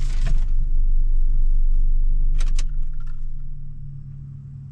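Car engine running with a steady low hum inside the cabin, with a short burst of rustling at the start and a quick rattle of clicks about two and a half seconds in. The sound fades away toward the end.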